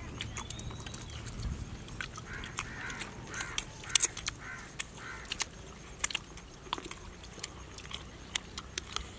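Close-up eating sounds: wet chewing, lip-smacking and finger-sucking clicks as a man eats saucy pepper chicken with his fingers. A run of short chirping calls sounds between about two and five seconds in.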